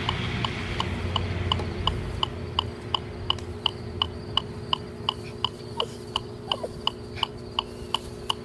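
Electronic metronome beeping at a steady fast tempo, about three beats a second, with a low hum fading out over the first two seconds.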